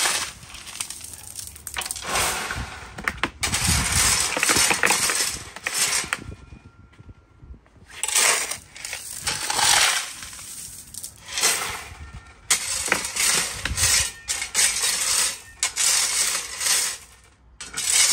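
Gravel shovelled onto a wooden-framed mesh sieve and worked across it with a shovel: stones rattling and scraping on the mesh and shovel blade in repeated bursts a second or two long.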